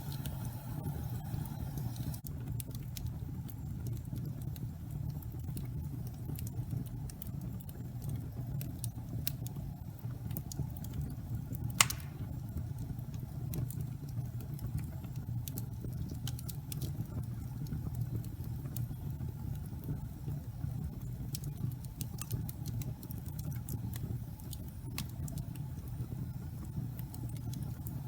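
Fire in a fireplace crackling over a steady low rumble, with scattered small crackles and one loud pop near the middle.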